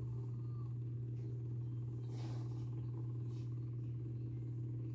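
A steady low hum throughout, with two brief soft rustles about a second apart near the middle.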